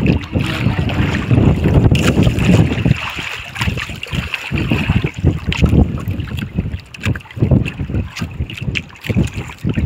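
Wind buffeting the microphone on a small outrigger boat in a choppy sea, with water slapping around the hull. The low rumbling gusts are heaviest in the first three seconds and ease after that.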